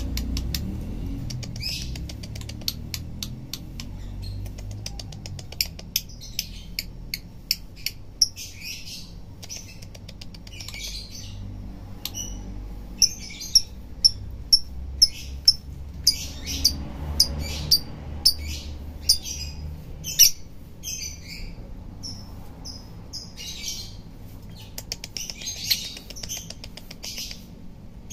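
Lovebird singing a long, chattering song of high chirps, clicks and trills, with runs of sharp repeated chirps about two a second, the clearest near the middle. A low steady hum lies underneath.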